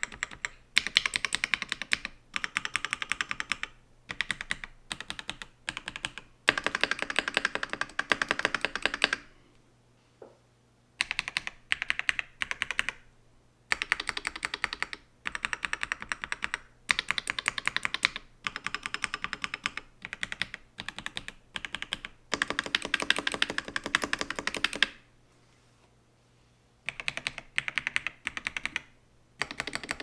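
Typing on a Keychron V1 Max mechanical keyboard in its stock case, with linear Gateron Jupiter Red switches, first with OSA keycaps and then with OEM-profile keycaps and a NuPhy ghost bar; the stabilizers are not yet tuned. Fast runs of keystrokes in bursts of a second or two, broken by two longer pauses, about a third of the way in and again near the end.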